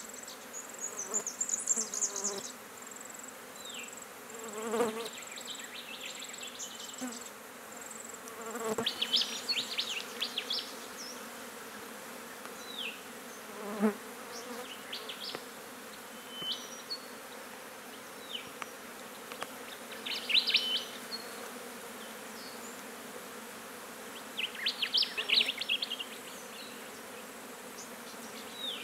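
Flies buzzing around a decaying roadkill wombat carcass, several passing close and loud about five, nine and fourteen seconds in, with short high chirping calls scattered throughout.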